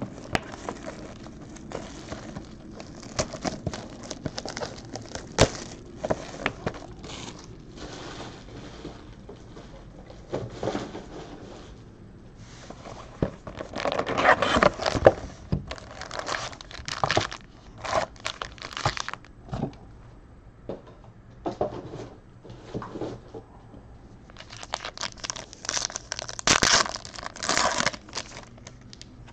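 Plastic shrink-wrap and foil card packs crinkling and tearing as a sealed box of trading cards is unwrapped and opened, in irregular bursts with small clicks. The crinkling is loudest about halfway through and again near the end.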